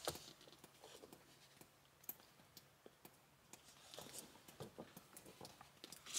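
Near silence, with faint scattered scratches and small clicks and one sharper click at the end.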